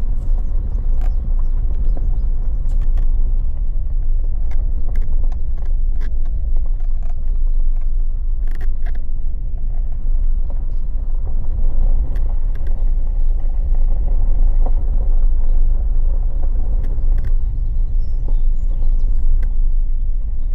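Four-wheel-drive vehicle crawling over a rough trail in four-wheel low with the center differential locked: a steady low rumble of engine and tyres, with scattered knocks and clicks.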